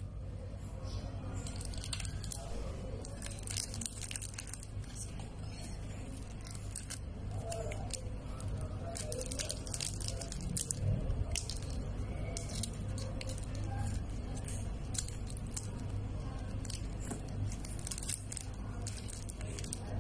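Thin plastic wrapper crinkling and crackling in irregular bursts as a stick of modelling clay is unwrapped by hand, over a steady low hum.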